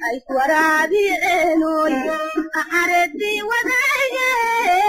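A woman singing a sliding, ornamented melody, part of a song playing under the closing part of the story.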